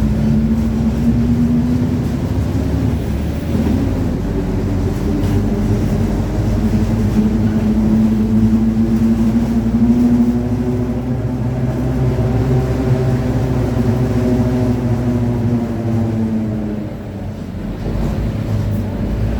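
Mercedes-Benz OF-1721 bus's rear differential droning as the bus drives, a pitched howl over engine and road rumble that rises a little in pitch and then fades out near the end. The drone is the sign of a noisy differential.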